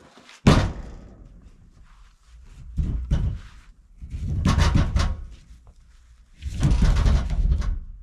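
A log dropped heavily onto the log pile: one sharp, loud thud about half a second in, then three bursts of about a second each of low rumbling and rustling as the logs are handled.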